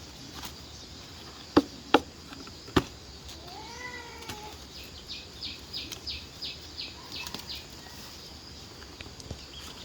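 Three sharp knocks, then a single pitched animal call about a second long that rises and falls, like a meow. Then comes a quick run of short high chirps.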